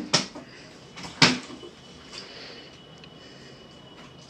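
Partly filled plastic water bottle knocking onto a cloth-covered wooden table as it is flipped: two sharp knocks about a second apart, the second louder.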